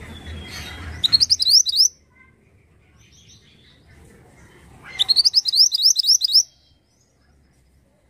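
Male minivet singing two quick runs of high, upward-sweeping notes, the first about a second in and the second around five seconds in.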